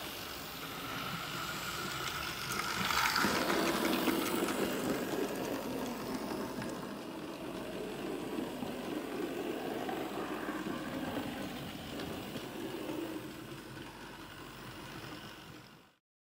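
Hornby Dublo 00 gauge model train running on the layout: the locomotive's motor whirring and the wheels clattering over the track. It is loudest a few seconds in, eases off near the end and cuts off suddenly.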